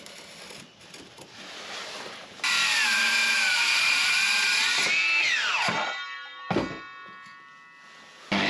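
Circular saw starting with a sudden whine and running through a cut, its pitch sagging under load and then recovering. It is released and winds down with a steeply falling pitch, followed by a single knock. Quieter handling noise comes before it.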